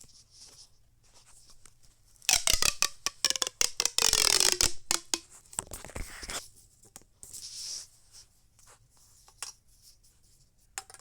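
Corrugated plastic pop tubes being stretched and squashed: a rapid run of rasping clicks from the ridged tubes for about four seconds, starting two seconds in, with a tone that falls in pitch partway through. Quieter plastic rustling follows.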